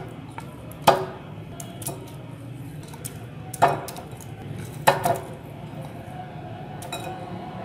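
Raw chicken pieces added to a glass bowl of yogurt marinade: a few sharp clinks of dishware against the glass bowl, the loudest about a second in and near four and five seconds, with smaller knocks between.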